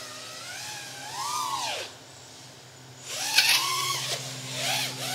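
Brushless motors of a 4S FPV quadcopter whining, their pitch swinging up and down with the throttle. The pitch rises and falls about a second in, the motors drop back for a second, then climb sharply again after three seconds.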